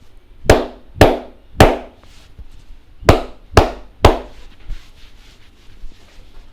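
A barber's hands striking the head in a percussive head massage: six loud, sharp slaps in two sets of three, about half a second apart, with a pause of about a second and a half between the sets.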